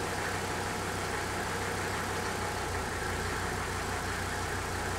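A 1985 Mercedes-Benz 300 turbo diesel's five-cylinder engine idling steadily just after a cold start. It keeps running instead of quitting, the cold-start stall that the owner thinks a rebuilt fuel lift pump has fixed.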